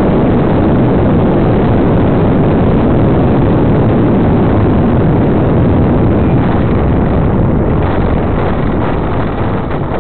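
Model airplane's motor and propeller together with a steady rush of airflow over the onboard tail camera's microphone. The noise eases off over the last couple of seconds as the plane slows to land on grass.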